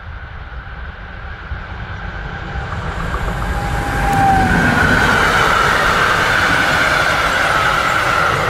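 DB Cargo Class 189 electric locomotive hauling a freight train with car-carrier wagons past at speed. The noise builds as it approaches, with a brief tone about halfway as the locomotive goes by. Then comes the steady loud rolling of the wagons' wheels on the rails, with a high steady whine over it.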